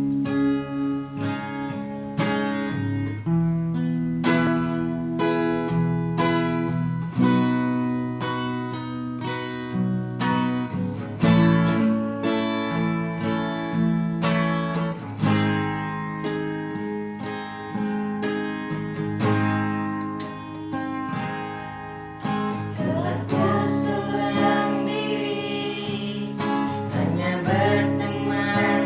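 Acoustic guitar strumming chords in a steady rhythm, with a voice starting to sing over it near the end.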